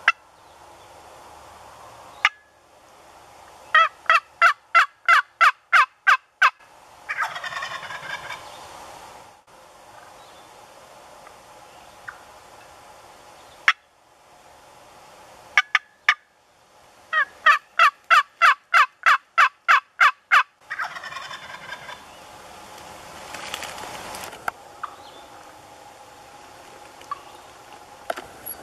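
Wild turkey calling: twice, a run of about nine loud, evenly spaced yelps is followed at once by a jake's rattling gobble lasting two to three seconds. A few single sharp clucks fall between the runs.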